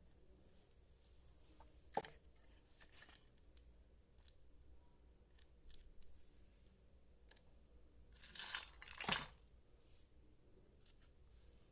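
Quiet handling of small toy pieces and packaging: scattered light clicks, a sharp click about two seconds in, and a brief rustling scrape ending in a snap a little after eight seconds in.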